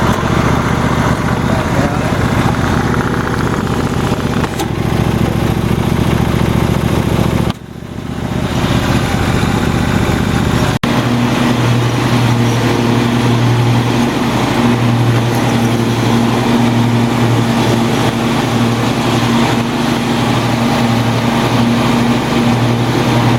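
Riding lawn mower's 26 hp Briggs & Stratton engine running steadily under load while mowing. The sound changes abruptly a few times, with a brief dip about seven and a half seconds in. After about eleven seconds it settles into a strong, even hum.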